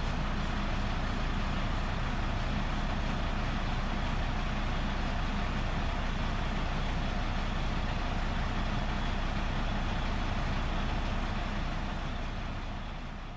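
Freightliner Columbia semi truck's diesel engine idling steadily; the sound fades out near the end.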